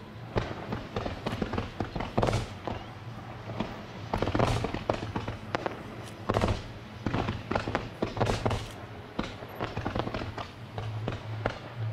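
Fireworks display: a rapid, irregular string of bangs and crackles from bursting shells and comets, with louder reports about four and a half, six and a half and eight seconds in. A steady low hum sits underneath.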